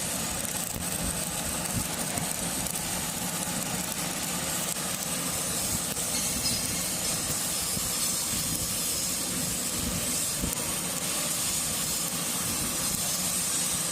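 Electric arc welding: the welding arc sizzles in a steady hiss with irregular crackle, unbroken throughout.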